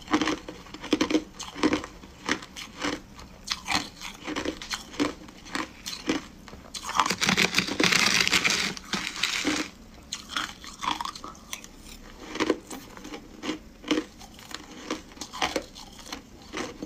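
Shaved, refrozen ice being chewed, a quick run of crisp crunches, two to three a second. About seven seconds in, a metal spoon scrapes and scoops through the shaved ice in its tray for about three seconds, the loudest part, before the crunching resumes.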